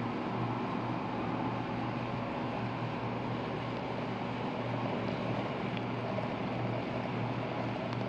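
Hot water poured in a thin, steady stream from a gooseneck kettle into a glass French press onto ground coffee, over a low steady hum.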